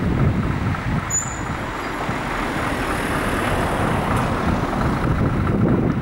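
Jet engine noise from an Airbus A320-214's CFM56-5B turbofans: a loud, steady rumble with a faint thin whine above it.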